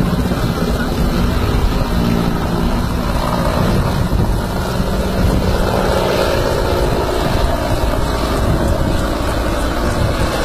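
Large transport helicopter running loud and steady, its rotors and engines at full power as it lifts off and climbs away.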